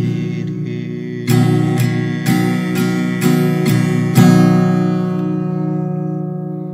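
Acoustic guitar strumming the song's closing chords, about two strums a second, then a final chord left ringing and fading out.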